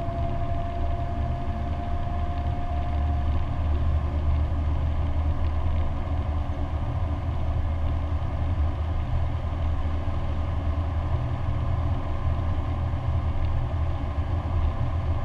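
Inside the cabin of a Lancia Delta HF Turbo cruising at a steady speed: its four-cylinder engine runs with an even low drone under steady tyre and road noise. A faint high whine fades out about three seconds in.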